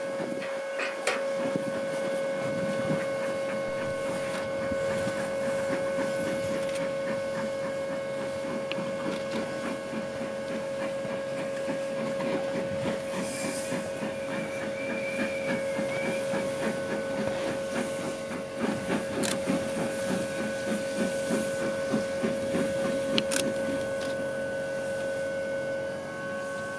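SLM-built 1910 steam rotary snowplough Xrotd 9213 at work, its steam cylinders driving the bogies and the rotor wheel: rhythmic chuffing beats and steam hiss over a steady high-pitched tone.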